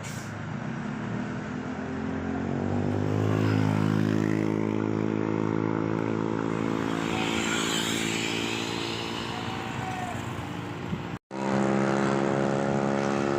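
Bus engine running and revving up, its pitch rising over the first few seconds and then holding steady. About eleven seconds in the sound cuts out for an instant and an engine is heard running steadily again.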